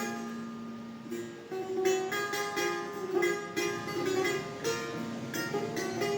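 Solo setar, the Persian long-necked lute, played in an improvisation in dastgah Shur. A plucked note rings and fades over the first second or so, then a run of quick plucked notes follows.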